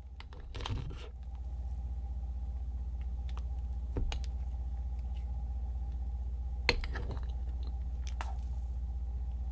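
Metal spoon poking and scooping fluffy slime in a glass dish: soft squishes with a few short, sharp clicks of the spoon against the glass, over a steady low hum.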